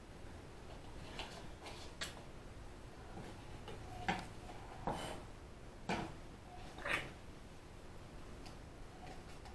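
Kitchen utensils knocking and clicking during food preparation: about six short, sharp knocks spaced roughly a second apart.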